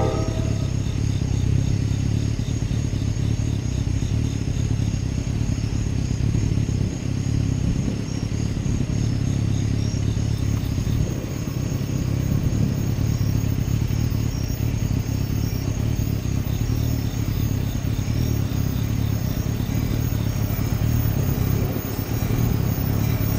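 Steady low rumble of an approaching NJ Transit commuter train hauled by an ALP-46 electric locomotive, with a faint rhythmic high chirping of insects over it.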